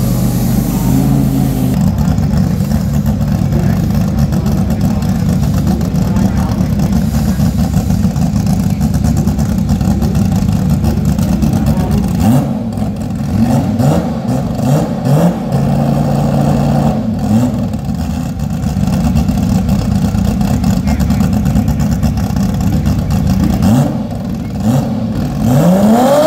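Drag-prepped Toyota Supra's 2JZ straight-six engine idling, with several short throttle blips about halfway through and a sharp rise in revs near the end.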